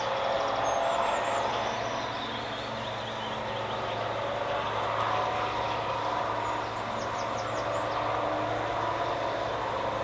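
Class 55 Deltic locomotive under power, its Napier Deltic two-stroke diesel engines giving a steady drone. A bird chirps briefly about seven seconds in.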